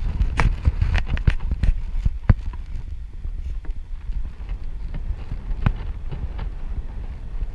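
Wind buffeting the camera microphone, a steady low rumble, with a run of sharp crackles and knocks in the first couple of seconds and a few more later on.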